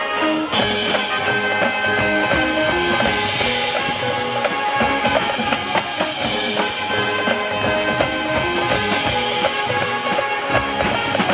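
Marching band playing, with brass and woodwinds holding chords over snare and bass drum hits.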